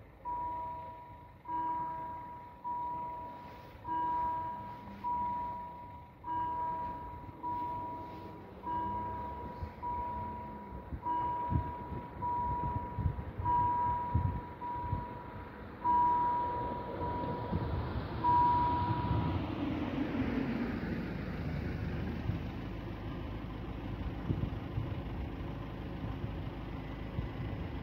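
Railway level-crossing warning bell ringing at a steady pace, about one strike every 1.2 seconds, warning of an approaching train while the half-barriers come down; the ringing stops about two-thirds of the way in, once the barriers are down. A road vehicle passes as the ringing ends, its noise swelling and then falling away.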